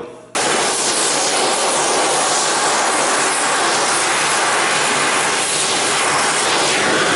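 Oxy-fuel torch flame hissing steadily as it heats a steel flat bar along a scored groove so that it can be bent. The hiss cuts in abruptly just after the start and dies away at the very end.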